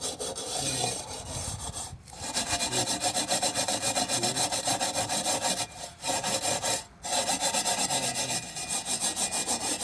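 Rapid back-and-forth scrubbing on the rusty metal of a kerosene heater, stripping off rust before priming, about five strokes a second, with short breaks about two, six and seven seconds in.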